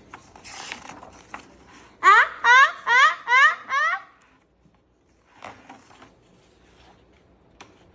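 A child's voice giving five quick, high vocal bursts in a row about two seconds in, each rising in pitch, in the manner of a laugh or mock sobs. Faint clicks and rustles come before and after.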